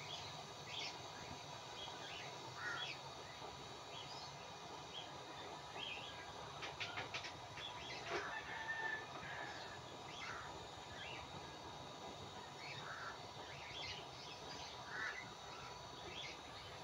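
Birds chirping sporadically in short high calls over a faint steady hum, with a brief run of clicks about seven seconds in.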